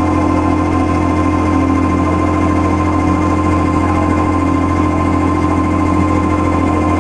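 Live electronic drone noise music: a loud, steady low hum held without change, with sustained higher tones and a dense, grainy buzzing texture over it.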